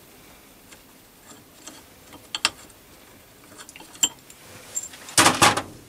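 Metal fittings being handled as a steel adapter plate is unfastened from a lathe-mounted lapping table: a few light metallic clicks, then a short, louder scrape and clatter near the end.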